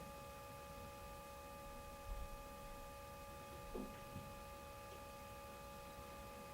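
Quiet room tone with a faint steady electrical whine of several high tones, and a few soft taps about two and four seconds in.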